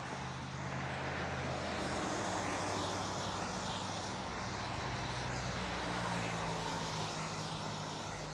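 A steady, low engine drone whose pitch shifts down a couple of times, over an even hiss.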